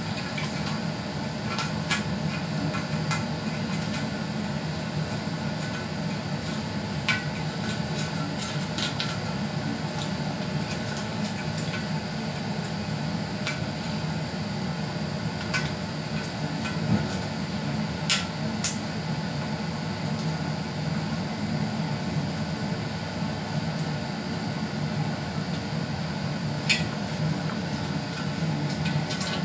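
Razor blade scraping dried PVA bonding material off the glass face of a 25AP22 colour picture tube, giving scattered sharp clicks and ticks of the blade on the glass over a steady low hum.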